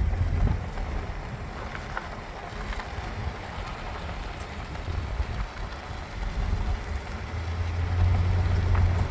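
A vehicle driving on a dirt road: a low engine and tyre rumble that swells near the start and again about eight seconds in, with a few faint knocks.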